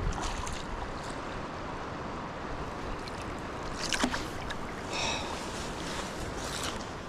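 Steady rush of river water, with a few sharp ticks and a brief high chirp about five seconds in.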